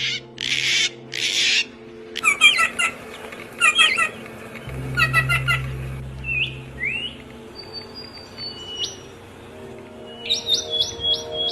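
Songbirds calling: two harsh, raspy squawks near the start, then runs of quick chirps, a few thin whistled notes midway, and a fast chirping series near the end.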